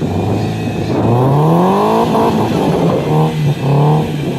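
Car engine revving hard: the engine note climbs steeply about a second in, then is revved up and down in several short bursts.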